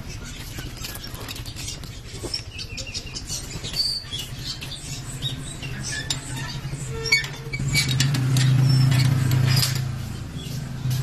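Small motorcycle engine running with a steady low hum, growing louder for about two seconds near the end, with scattered clicks and rattles over it.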